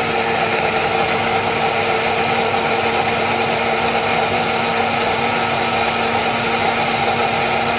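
Small personal blender running steadily, blending a smoothie of apple, banana, oats, milk and ice; an even motor hum that does not change in pitch.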